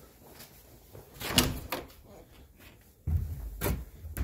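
An interior door being opened: the knob and latch click and the door knocks in a quick cluster about a second in, followed by a low rumble and a few more knocks.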